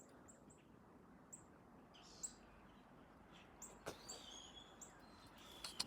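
Faint bird chirps: short, high calls scattered through, a few of them quick falling notes, over near silence.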